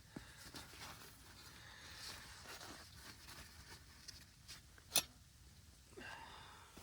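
Faint rustling and handling of camping gear in a small shelter, with a single sharp click about five seconds in.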